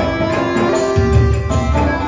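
Instrumental music in a traditional Indian style: sustained melodic tones over recurring low drum strokes.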